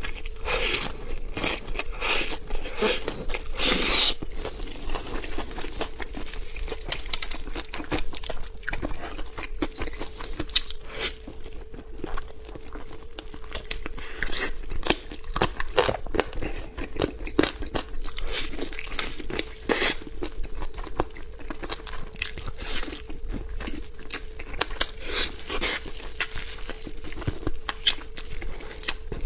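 Close-miked eating of chicken 'pistol legs': biting into the meat and chewing, with many irregular crunches and some crinkling.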